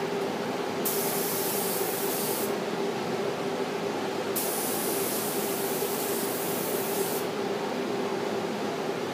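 Spray gun spraying finish in two hissing bursts, the first about a second and a half long and the second nearly three seconds, over a steady fan hum.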